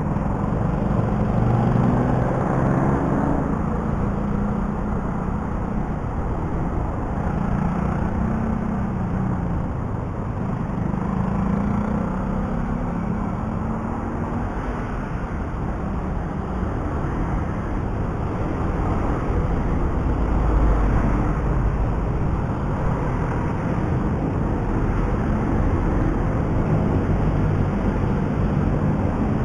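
Motorcycle riding in traffic: the engine running with its pitch rising and falling as the bike speeds up and slows, under steady wind noise on the microphone. A louder low rumble swells about two-thirds of the way in.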